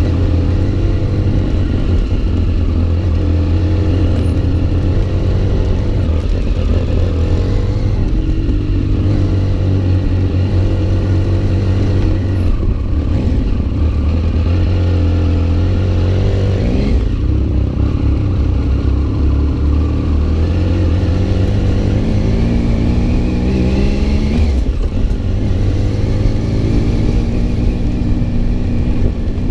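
Big adventure motorcycle engine running steadily on the move, its pitch rising with the throttle about halfway through and again in the last third.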